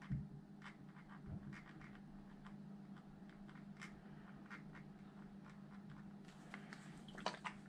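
Faint clicks, taps and light scraping of small screws and a hand tool being worked into an RC truck's motor mount, with a busier run of clicks near the end. A steady low hum runs underneath.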